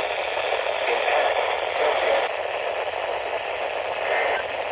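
Weather radio receiver giving out a steady static hiss with a faint crackle: the broadcast signal has dropped out.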